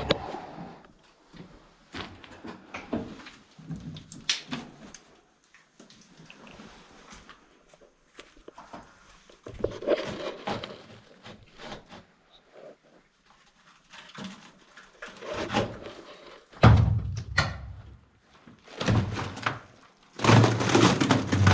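Scattered knocks, thuds and rustling from people clambering about and handling objects, with a few heavier thuds in the last five seconds.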